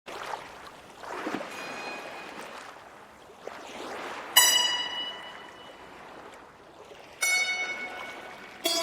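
Opening of an ambient music track: a soft rushing wash, then two sharp ringing notes about three seconds apart, each fading away.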